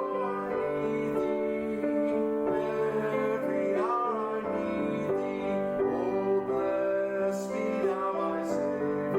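Slow instrumental music led by piano, with long held notes changing about once a second.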